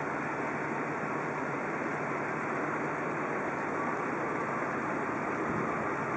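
Boeing 777-200ER jet engines at takeoff thrust during the takeoff roll: a steady rushing noise with no change in level.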